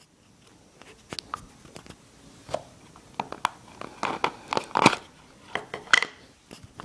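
A Zippo lighter's box and its paper packing being opened and handled: scattered clicks, crinkling and rustling, busiest about four to five seconds in.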